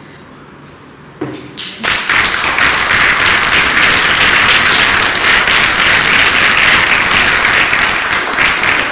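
Audience applauding. It starts about two seconds in after a short quiet moment and stays loud, many quick overlapping claps.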